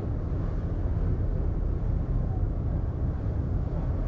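Steady low rumble of a ferry under way, heard from on board, with faint distant voices.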